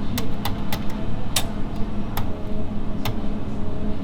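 Sharp clicks at uneven intervals, roughly one every half second to second, the loudest about a second and a half in, over a steady low hum and rumble.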